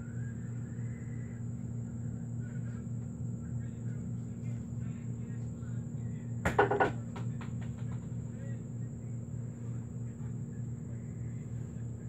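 Faint music and voices from videos playing in the background, over a steady low hum. About halfway through comes a short, quick cluster of knocks, the loudest sound.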